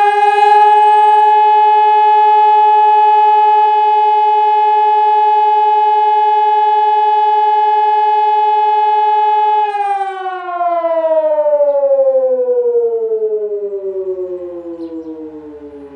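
ECN 600 electromechanical civil defence siren on a test run, sounding one loud steady tone at full speed. About ten seconds in it is switched off and winds down, its pitch sliding slowly lower as it fades.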